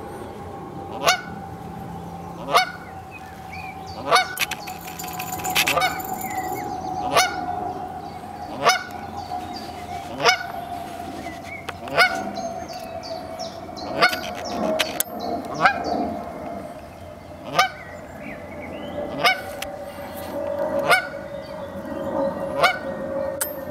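Canada goose honking over and over, one short honk about every one and a half to two seconds. Under the honks runs a faint steady hum that slowly drops in pitch.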